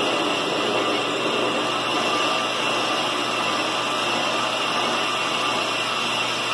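Ammco brake lathe running and taking a fast resurfacing cut across a brake rotor, its cutting bits shaving the disc faces: a steady, even whir.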